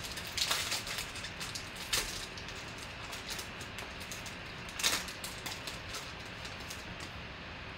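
Foil trading-card pack wrapper crinkling and tearing as it is peeled open by hand, with a few sharper crackles, the loudest about two and five seconds in.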